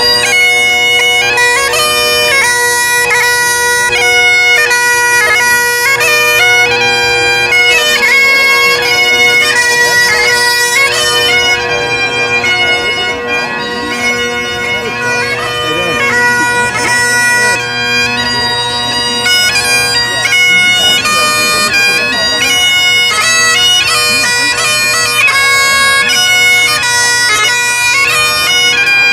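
Bagpipes playing a tune: a melody of quick stepped notes over steady, unbroken drones.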